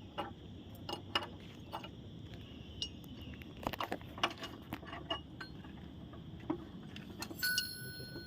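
Irregular light metallic clinks and taps of hand tools against steel bucket parts, with a short ringing note near the end.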